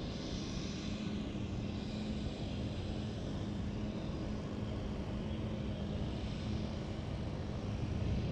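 A steady engine drone with a low, even hum, unchanging throughout.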